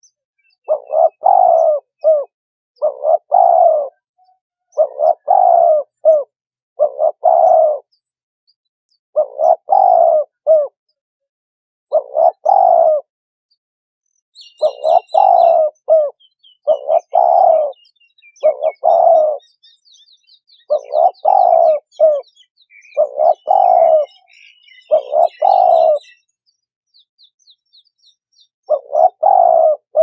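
Turtle dove cooing: short phrases of a few low coos, one after another about every second or two, with two brief pauses, one near the middle and a longer one near the end.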